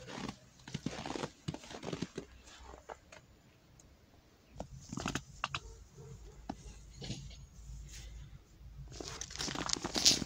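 Snow crunching underfoot in irregular bursts of steps, loudest near the end.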